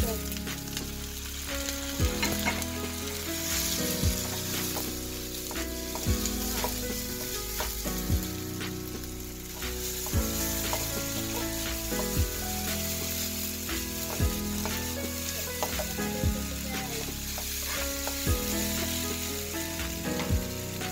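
Udon noodles and fried potatoes sizzling steadily in a hot pan. Background music plays over it, with held notes and a soft beat about every two seconds.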